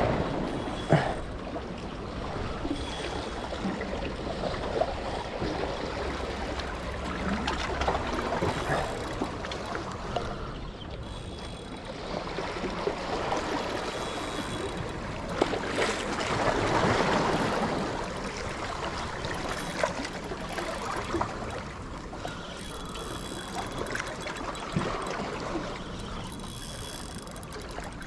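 Sea water sloshing and washing in small swells that rise and fall every few seconds, with a few scattered light clicks and knocks.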